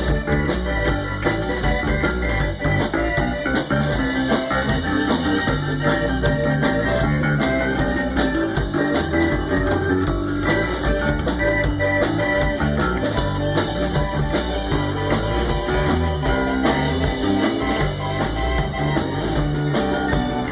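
Electric bass, a Precision Bass with active EMG pickups, played with a growling tone along with a rock band recording during an instrumental stretch without vocals, with guitar over a heavy steady low end.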